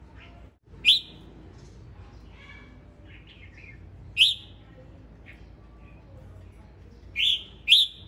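Male red-whiskered bulbul singing: four loud, sharp high notes, one about a second in, one around four seconds, and two close together near the end, with softer chirps between them.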